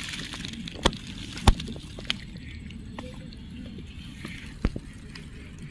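Dry straw crackling as it is shifted, a few sharp clicks, the loudest about one and a half seconds in, over a low steady rumble.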